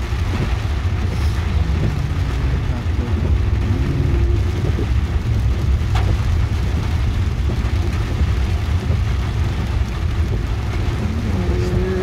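Steady low rumble of a car driving through heavy rain, heard from inside the cabin, with rain on the windshield and a wiper blade working.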